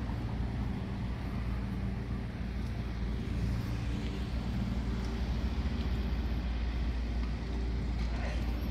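A steady low engine drone, even in pitch throughout, with a brief knock about eight seconds in.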